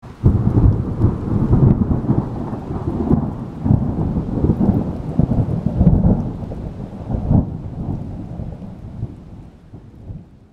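Thunder rumbling in rolling swells, several peaks a second or two apart, then dying away toward the end.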